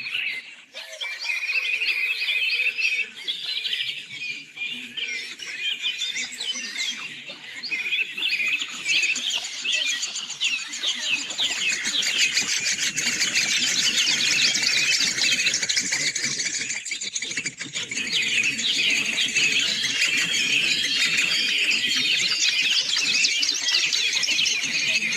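Songbirds singing, a dense, continuous stream of fast chirps and trills that fills out and grows busier after about ten seconds.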